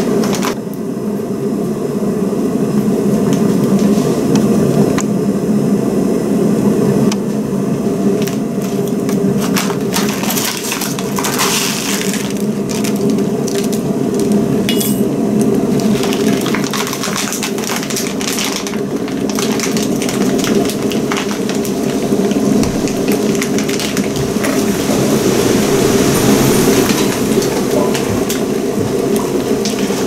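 Kitfort KT-679-1 electric kettle heating water close to the boil, its thermometer near 90 °C: a steady noise with many small crackles and clinks throughout.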